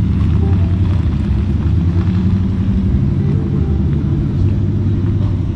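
A car engine running steadily close by, its exhaust giving a deep, loud rumble.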